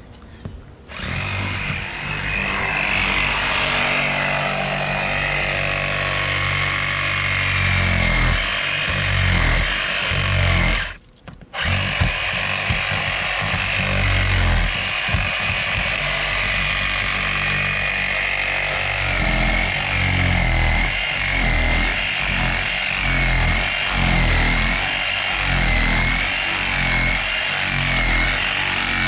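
Power tool running steadily while cutting out the old windshield, with a brief stop about eleven seconds in.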